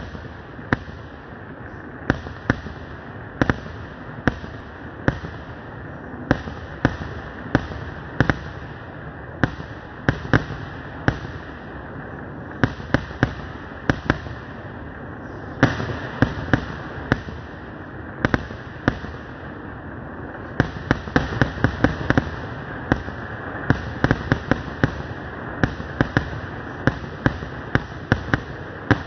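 Fireworks going off in a rapid series of sharp bangs as shells launch and burst, over a continuous hiss. The bangs come closer together in the second half.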